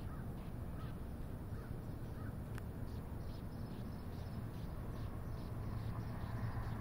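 Short bird calls repeated a couple of times a second over a steady low hum.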